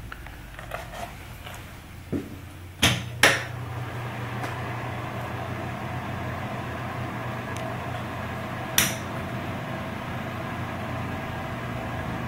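Wall switches clicking twice about three seconds in, after which a steady hum of a bathroom exhaust fan sets in. Another switch click comes about nine seconds in while the hum runs on.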